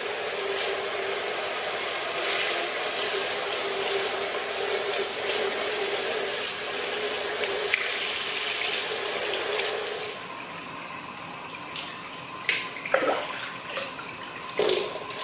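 Hot-spring water pouring steadily into a stone bath. About ten seconds in the sound changes to a quieter trickle, with a few short sharp sounds near the end.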